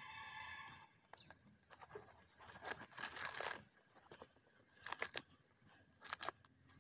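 Crushed coconut's fibrous husk being torn and pulled apart by hand, in several short rasping bursts. A brief high-pitched sound is heard at the very start.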